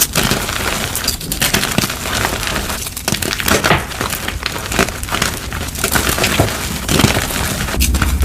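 Dyed gym chalk being crushed and crumbled up close: a dense, irregular run of crisp crunches and crackles.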